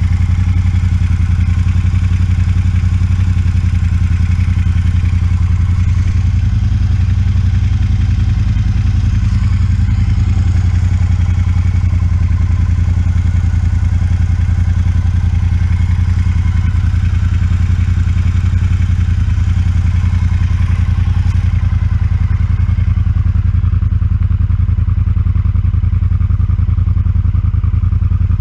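Triumph Speedmaster 1200's parallel-twin engine idling steadily through its stock exhaust pipes, with a low, even beat.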